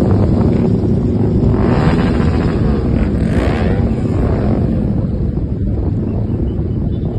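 Motorcycle on the move: engine running under heavy wind buffeting on the microphone. A louder swell of noise rises and falls about two to four seconds in.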